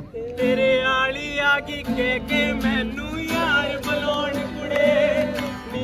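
A man singing a song live, accompanied by a strummed acoustic guitar.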